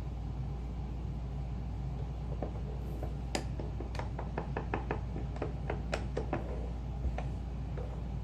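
A run of about fifteen sharp taps as a bezel is hammered down in a ring sizer to shrink it snug. They start a couple of seconds in, come quickest in the middle at about four a second, and end near the finish. A steady low hum sits underneath.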